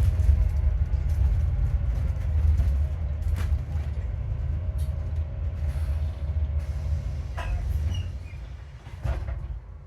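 Interior of an Alexander Dennis Enviro400MMC double-decker bus on the move: low engine and driveline rumble with a faint steady whine, which the uploader puts down to a bad alternator, and a few short rattles. The rumble drops away near the end as the bus slows.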